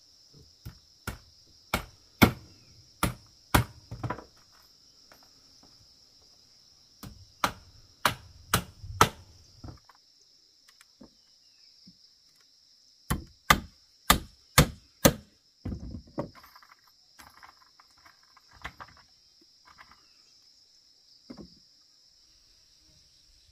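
A hammer striking split-bamboo floor slats in runs of sharp knocks, about two a second, with pauses between and some softer scraping of slats near the middle. A steady high insect drone runs underneath.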